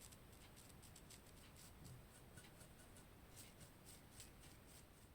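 Faint, quick strokes of a small brush working gold leaf onto a mended pottery bowl, about three light strokes a second at an uneven pace.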